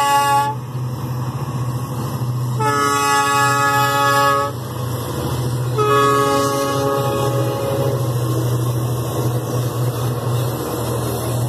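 Trio of GM GT22 diesel locomotives passing close. The air horn blows three times: a blast that ends about half a second in, then two blasts of about two seconds each, a second or so apart. Under the horn runs the steady low drone of the diesel engines, and the train rolls by after the last blast.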